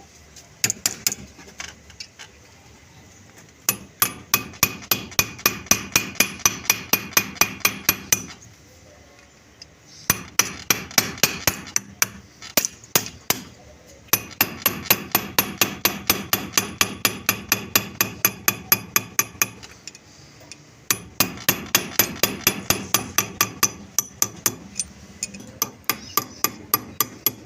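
Rapid hammer blows on a brass lock, about four a second, in several long runs with short pauses between, each strike ringing like metal. The hammering works the lock's top cover plate off so it can be opened.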